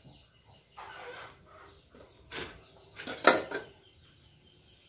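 Metal cooking pots clanking as they are handled on a gas stove: a light clink a little over two seconds in and a louder clank about three seconds in.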